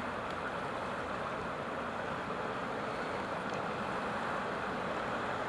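Steady rushing of fast-flowing river floodwater.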